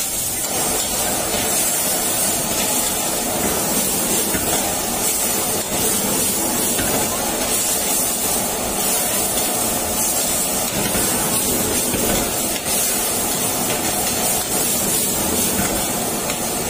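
Goat meat and cauliflower stir-frying in a wok over a high gas flame: a steady hissing sizzle mixed with the rush of the burner, with a metal ladle scraping and knocking against the wok.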